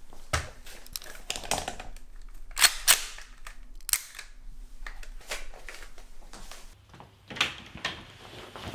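A pistol being handled and drawn from a fabric holster: a series of sharp metallic clicks and clacks, the loudest two close together about three seconds in, with another single click near the end.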